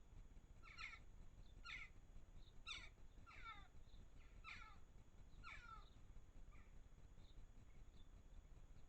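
A garden bird calling: a run of about six faint calls, each falling sharply in pitch, roughly one a second, then a few short, fainter chirps near the end.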